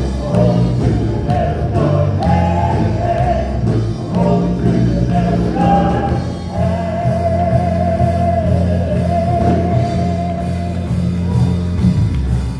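Gospel singing with instrumental accompaniment over a steady bass line. A long note is held in the middle.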